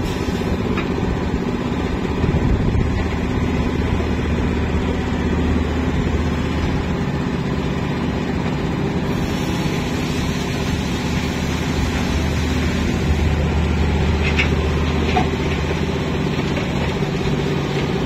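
Steady low drone of heavy diesel plant machinery running, with a couple of faint knocks about three-quarters of the way through.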